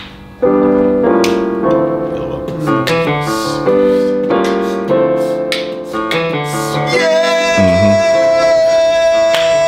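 Digital keyboard playing electric-piano chords that change about every half second, settling about seven seconds in on a long held chord with a high top note.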